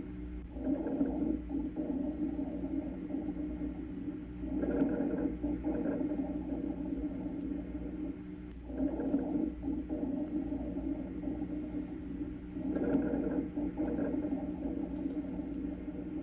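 Rhonchi: harsh, low-pitched rattling breath sounds generated in the large airways (the bronchi), heard over four breaths, about one every four seconds, each swelling in as the breath begins.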